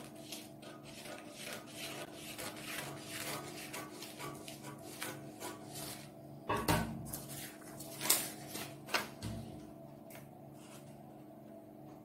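Scissors cutting through paper pattern in a run of quick snips, about four a second; about two-thirds through, a few louder crackles as the paper is handled and the cut piece is lifted free.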